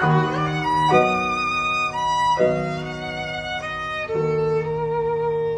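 Violin playing slow, sustained notes that change pitch about every second and a half, over a low held bass note.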